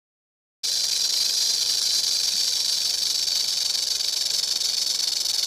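Rattlesnake shaking its tail rattle: a steady, dry buzz that starts about half a second in.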